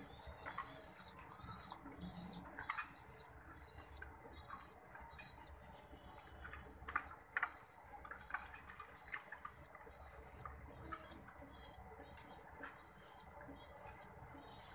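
Ring-necked dove squabs begging while being fed by the parent: a steady run of short high squeaks, about two a second, with soft rustling of feathers. A few sharp clicks about seven seconds in are the loudest sounds.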